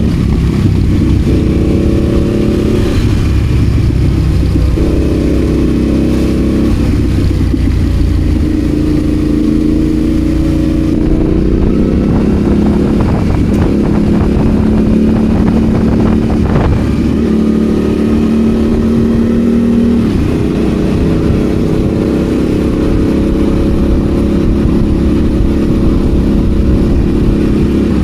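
An adventure motorcycle's engine running off-road, its pitch stepping up and down every few seconds with throttle and gear changes. A few sharp knocks come near the middle.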